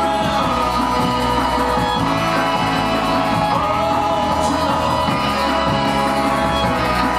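Live band playing an instrumental passage, with violin, electric bass and keyboard, and no singing.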